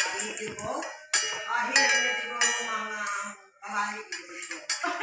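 Toy pots, pans and utensils clinking and clattering against each other, a series of knocks with short ringing tones, as play cooking goes on.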